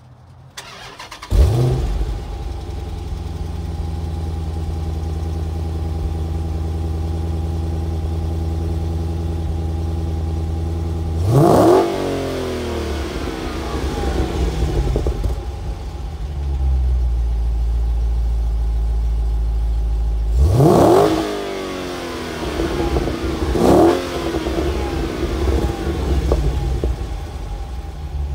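Dodge Challenger engine cold-started about a second in, then settling into a steady fast idle through its exhaust. The throttle is blipped three times, each a short rev that rises and falls back to idle, the second and third close together near the end.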